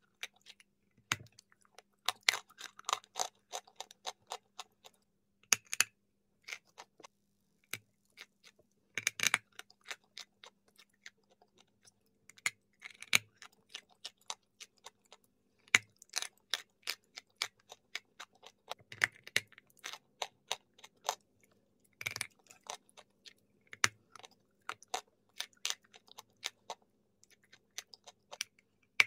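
Close-up crunching and chewing of a dry, crumbly chalk-like lump: irregular sharp crackles and clicks in clusters every second or two, as it breaks up between the teeth.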